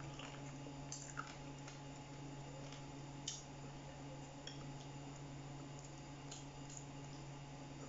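Faint eating sounds: fingers picking at fried chicken and rice on a ceramic plate, and chewing, with a few small clicks, over a steady low hum.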